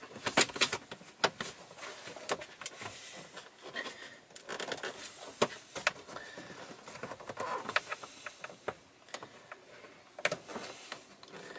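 Irregular hard-plastic clicks and knocks from a Ram 2500's cabin-filter access door being pushed and worked against its snap tabs. The door will not latch, which the owner puts down to a tab that someone has damaged.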